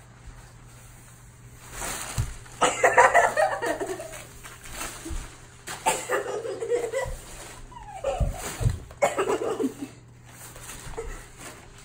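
A child giggling in short bursts, along with the rustle of a strip of brown packing paper being dragged and flapped across carpet for a kitten to chase.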